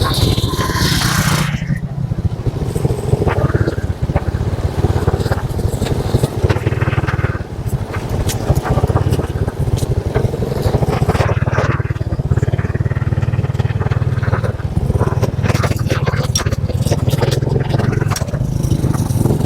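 Motorcycle engine running steadily while riding, with scattered knocks and rattles.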